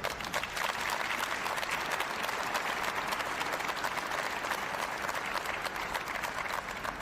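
Audience applauding: many people clapping together, swelling quickly and tapering off near the end.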